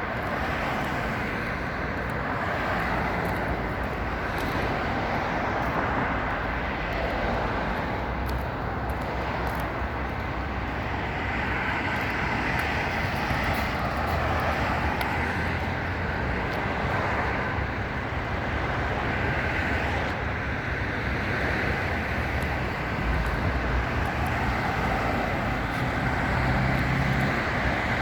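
Steady outdoor traffic noise: a continuous rumble of road vehicles that swells and fades as they pass.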